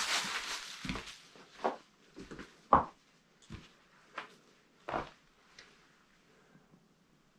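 Slow, uneven footsteps on the rocky, leaf-strewn floor of a cave: a short rustle at the start, then single steps about every two-thirds of a second that stop about six seconds in.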